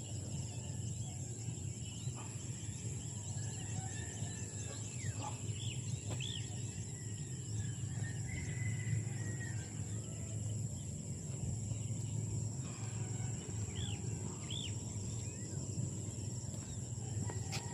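Rural outdoor morning ambience: a steady high insect drone over a low steady rumble, with a few short bird chirps around six seconds in and again near fourteen seconds in.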